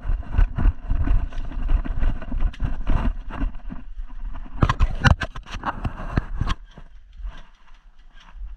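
Running footsteps on the ground with gear rattling and wind buffeting a body-worn action camera's microphone, as an airsoft player moves off at the start of a round. A cluster of sharp clicks comes about five seconds in, and the sound thins out near the end.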